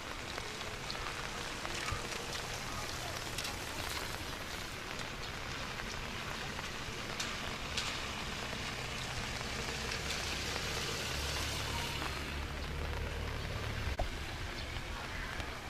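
Steady rain falling, with scattered drops ticking sharply on a nearby surface and a low rumble swelling for a couple of seconds past the middle.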